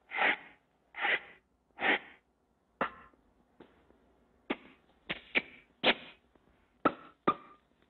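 A string of short cartoon sound effects: three longer smacking bursts about a second apart, then a quicker run of sharp smacks and clicks, with silence between them, as kisses land.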